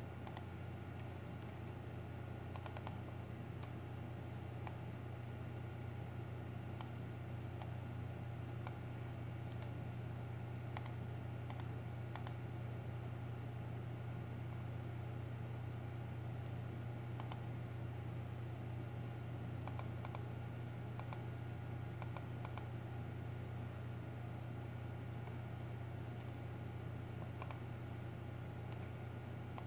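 Scattered clicks from a computer mouse and keyboard, some in quick pairs, over a steady low hum.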